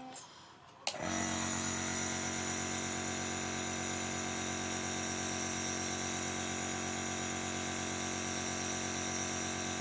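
Electric compressor nebulizer switched on with a click about a second in, then running with a steady hum and hiss as it nebulizes a child's medicine for chest congestion.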